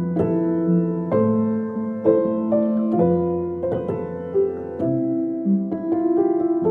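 Background piano music: a slow, gentle melody over sustained chords.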